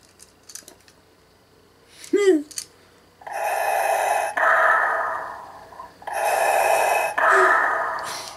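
Darth Vader Pocket Pal toy playing the movie's respirator breathing sound effect through its small speaker, starting about three seconds in: two loud in-and-out breaths, each about a second long. Before it, a few faint clicks and a short pitched sound.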